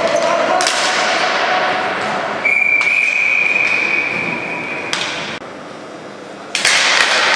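Ball hockey game noise in a hall, with sharp knocks of sticks and ball. A long steady whistle blast runs from about two and a half seconds in to about five seconds, stopping play. The sound drops off a little after five seconds and comes back abruptly near the end.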